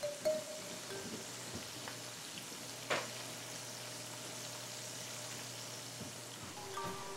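Sausages and pancakes sizzling in frying pans on a stovetop, a steady hiss, with one sharp clack about three seconds in.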